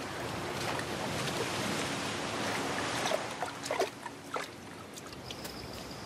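Sea surf washing over a sandy beach, a steady rush of water that eases off about four seconds in, with a few brief sharper sounds as it fades.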